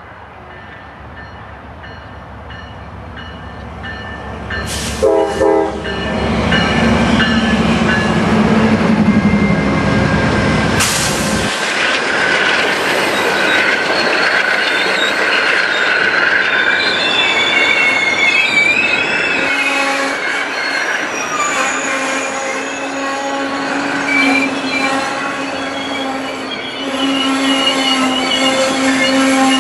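Amtrak GE P42DC diesel locomotives drawing near and passing, with a brief horn sound about five seconds in and a heavy low engine rumble. From about twelve seconds the bilevel passenger cars roll past with their wheels squealing in wavering high tones as the train slows into the station.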